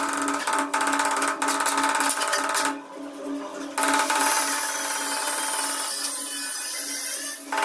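Hand tools at work on ceramic floor tiles set in mortar: a few sharp taps, then a stretch of scraping from about four seconds in, over a steady pulsing hum.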